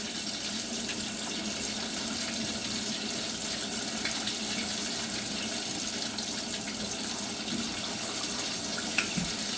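Kitchen sink faucet running steadily, water pouring into the sink for rinsing pork chops, with a small click shortly before the end.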